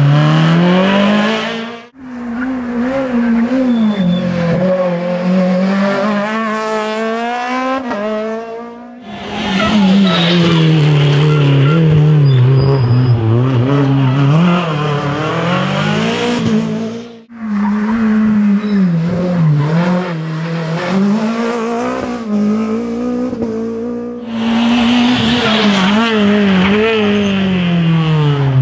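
Rally car engines at high revs through a tight hairpin, the pitch rising and falling with throttle lifts, downshifts and acceleration out of the bend. The sound breaks off suddenly four times as one car gives way to the next.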